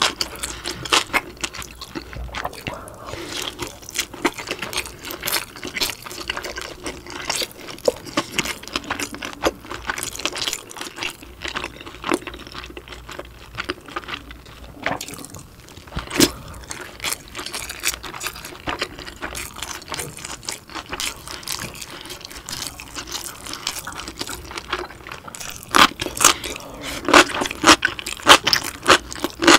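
Close-miked wet chewing and lip smacks of someone eating a steamed dumpling, a dense run of small clicks and squishes, growing louder over the last few seconds.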